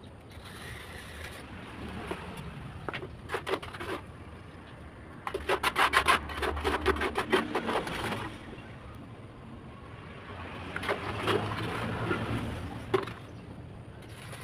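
Wet cement mortar being scraped and worked by hand with a wooden profile template while shaping a concrete corbel. The loudest part is a quick run of rapid, rhythmic scraping strokes in the middle, and a rougher scraping stretch follows near the end.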